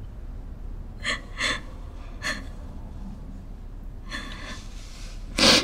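A young woman crying: a few short gasping breaths, a longer shaky breath, then a loud, sharp breath near the end.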